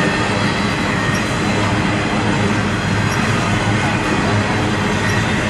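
Freight train rolling past close by at speed, its empty cars giving a steady, loud noise of wheels on rail.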